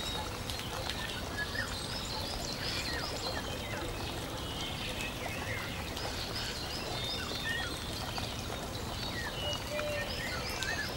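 Birds chirping and calling over a steady background hiss, with a quick series of repeated high notes a few seconds in and again near the middle.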